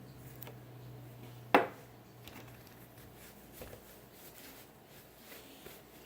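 Fidget spinner being handled: a low steady hum dies away just after a sharp click about one and a half seconds in, followed by a few faint light clicks.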